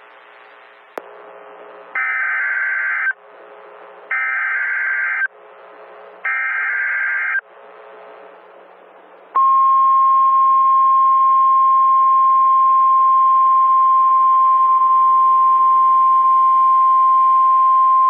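Emergency Alert System alert: three one-second bursts of SAME header data, a second apart, then a single steady 1050 Hz NOAA Weather Radio warning alarm tone starting about nine seconds in, signalling that a warning message follows. A faint click about a second in.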